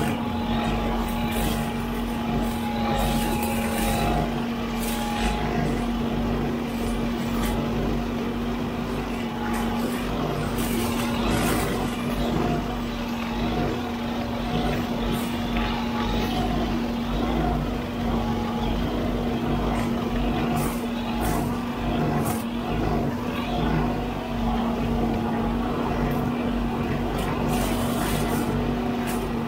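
Huddig 960C6 backhoe loader running with its boom-mounted hydraulic brush cutter spinning, a steady hum under frequent sharp cracks and ticks as the blades chop roadside brush and saplings.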